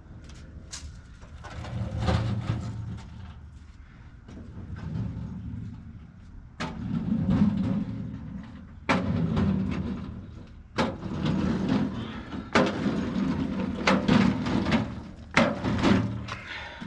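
Irregular knocks and clunks with low rumbling and rustling in between, as of hands working on heavy parts; about half a dozen sharp knocks are spread through it.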